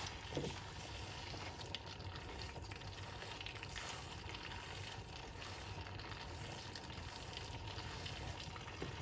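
Salted fish (momoni) frying in hot melted palm oil: a steady, soft sizzle.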